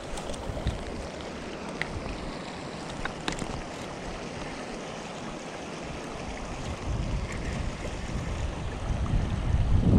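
Shallow river flowing over rocks, a steady rushing hiss, with wind buffeting the microphone in low gusts that grow stronger near the end. A few faint clicks in the first few seconds.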